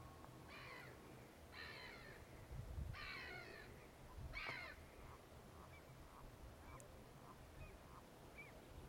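A crow cawing faintly, four harsh calls in the first five seconds, followed by a few short, faint bird notes.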